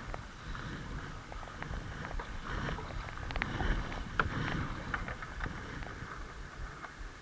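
Kayak paddle strokes splashing and dripping water, with the river rippling over shallows; the splashes are busiest around the middle.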